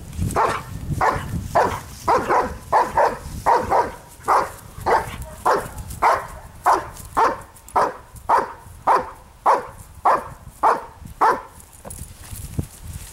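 Dog barking in protection-training agitation at a decoy's bite sleeve: a steady run of about twenty sharp barks at roughly two a second. The barking stops near the end as the dog goes in for the bite.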